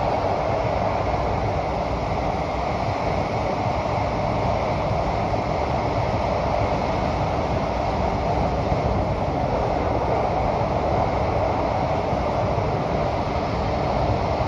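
Kawasaki & CRRC Sifang CT251 metro train running at speed, heard inside the passenger car: a steady, even noise of wheels, track and traction equipment that holds a constant level throughout.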